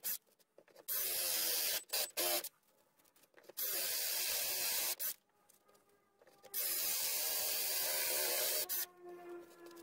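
Electric drill boring a hole in a softwood decking board with a Forstner bit, in three main bursts of a second or two each, with short pauses between. Near the end there is a quieter steady hum.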